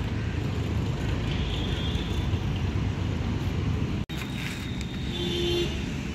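Diesel truck engine idling with a steady low rumble, broken off for an instant about four seconds in.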